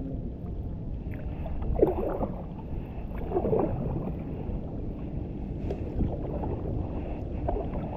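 Water lapping and sloshing against a plastic kayak hull as it drifts in shallow water, over a steady low rumble. There are two short, louder splashes about two and three and a half seconds in.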